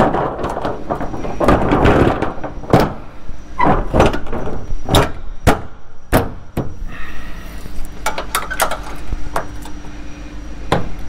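Hinged metal orange hazard-warning plate on a box trailer being folded and handled: rustling handling for the first two seconds, then a string of sharp metallic knocks and clacks against the trailer body. A faint steady hum comes in about seven seconds in.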